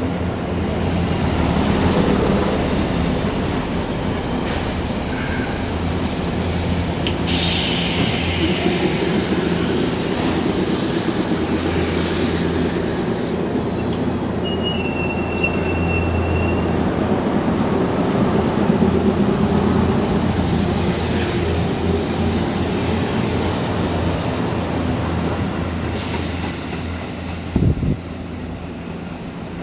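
Sanyo Electric Railway electric train running along the station platform: a steady rumble of wheels and motors, with a brief high squeal about fifteen seconds in and a short knock near the end.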